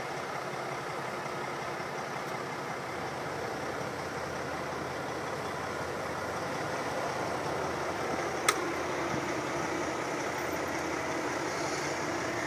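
Loaded log truck's diesel engine running steadily at low revs while the truck turns slowly. There is a single sharp click about eight and a half seconds in.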